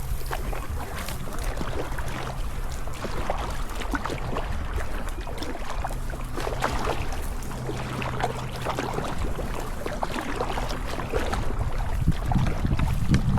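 Kayak paddle blades splashing and dripping in irregular strokes, over a steady low rumble of wind on the microphone.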